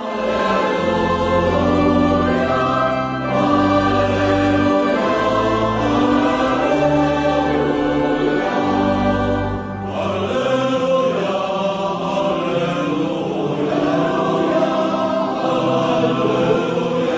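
Choir singing slow sacred music over sustained low bass notes; the low notes drop out about ten seconds in while the voices carry on.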